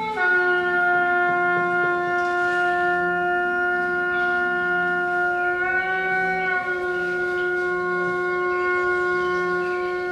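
Instrumental music: one long sustained note from a wind- or bowed-type instrument, over a soft low drone that swells and fades about once a second. The note settles lower at the start, steps slightly up about six seconds in, and drops back.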